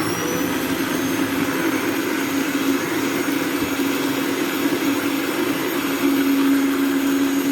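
Electric countertop blender running at full speed, blending a load of garden eggs, bell peppers and onions. Its motor whine rises just at the start as it spins up, then holds steady.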